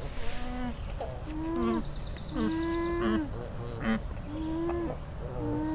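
Alpacas humming: about six or seven short hums, each roughly a half second to a second long, mostly holding one pitch and dipping at the end, some higher and some lower.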